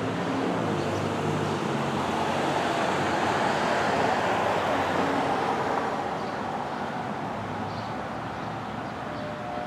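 Federal Thunderbolt 1000 rotating civil-defense siren sounding a steady wail. Its tone swells to a peak about four seconds in and then fades as the rotating horn turns away, over a background of road traffic.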